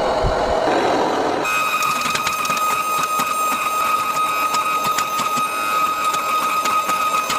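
A machine starts a steady high whine about a second and a half in, with a fainter tone above it and a dense, rapid crackle.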